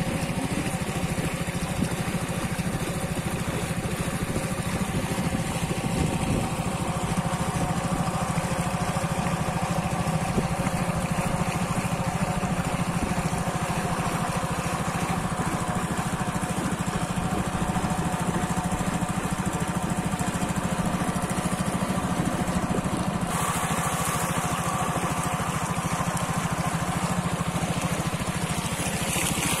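Small boat engine running steadily under way, an even motor drone. About two-thirds of the way through, a rushing hiss joins the engine sound.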